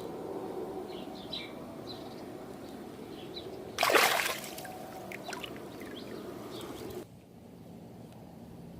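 A single splash in the water about four seconds in, over a steady low background noise that drops away about a second before the end, with birds chirping in the first few seconds.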